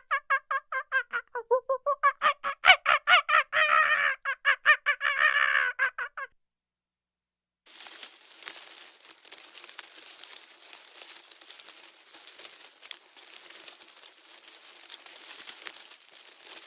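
Poultry calling in a fast run of short repeated notes, several a second, for about six seconds. After a brief silence, a steady hiss with scattered crackles takes over.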